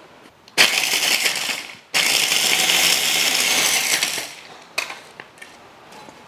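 Small electric food chopper run in two bursts, a short one and then a longer one of about two seconds, its blade grinding crunchy corn-flour biscuit rings (bizcochos) into crumbs. A few light knocks follow near the end.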